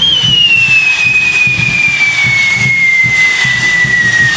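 Whistling firework on a spinning castillo wheel: one long whistle sliding slowly down in pitch, over the steady hiss of the burning fountains.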